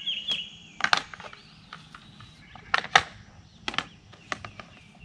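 A plastic poultry-waterer lid being scrubbed with a paper towel: a series of sharp scrapes and knocks, the loudest about a second in and about three seconds in. A few short, falling chicken peeps at the start.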